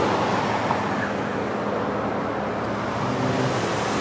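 Car driving slowly: steady engine hum and tyre noise, heard from inside the car.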